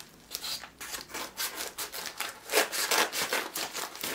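Small mail package being torn open by hand: a quick run of uneven rasping rips.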